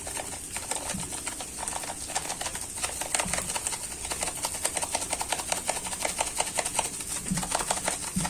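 Cauliflower and onion frying in a pan with no water added: rapid crackling ticks over a steady high hiss.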